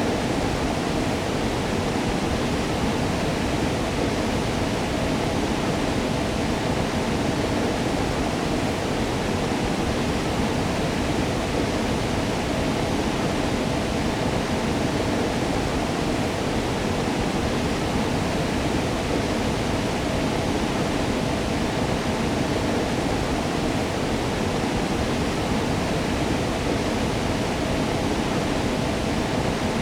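Waterfall: water falling and splashing in a steady, unbroken rush, strongest in the low and middle range.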